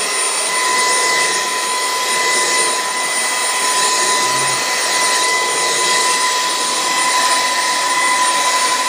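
Stick vacuum cleaner running steadily on its highest power setting: a rush of air with a steady high motor whine.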